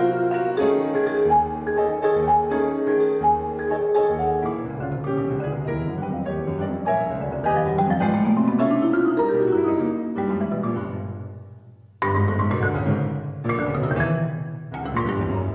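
Marimba and piano playing fast, driving struck notes together. About seven seconds in a rising run climbs, then the music fades away almost to nothing before both come back in loudly with sharp accented strokes about twelve seconds in.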